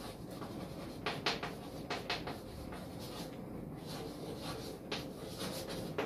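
Chalk writing on a chalkboard: short taps and scratches of the chalk strokes, in small clusters with pauses between them.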